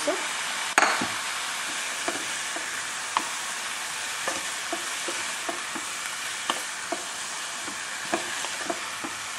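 Chopped mustard greens and ground broken rice sizzling in a metal pot, being stirred with a wooden spatula. There is a steady hiss, a sharp knock of the spatula about a second in, and lighter clicks roughly every second after it.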